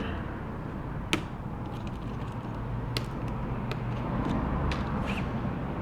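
A few small sharp clicks of an iPhone 7 Plus flex-cable connector being pried off its board socket, a clear one about a second in and another near three seconds, over a steady low hum.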